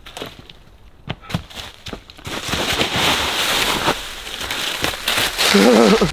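Footsteps on dry fallen leaves, first a few separate crunching steps, then from about two seconds in a louder, continuous crunching of leaf litter. Near the end a brief wavering pitched sound rises over it.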